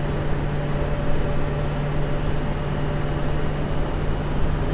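Eicher-chassis AC sleeper bus cruising at a steady speed, heard from inside the front of the cabin: a steady engine hum mixed with road noise.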